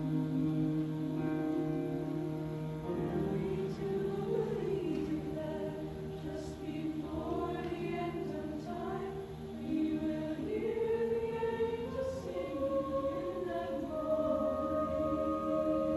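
Youth choir singing in parts, voices moving between sustained notes, ending on a long held chord in the last couple of seconds.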